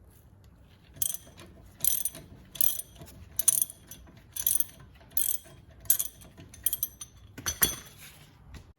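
Ratchet wrench with a 13 mm socket loosening a brake caliper guide pin bolt: a run of short ratcheting clicks on each back-swing, repeated about nine times at an even pace.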